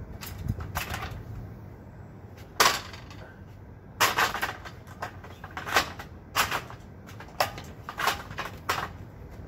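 About ten sharp knocks at uneven intervals, from hard plastic work on a PVC overflow pipe and its fitting at a water tank.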